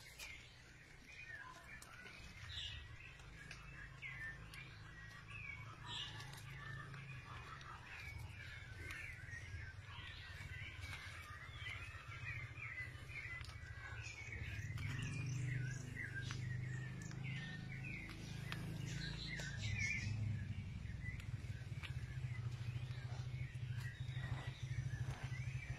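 Many small birds chirping and twittering in quick, overlapping short calls, over a steady low rumble that grows louder about halfway through.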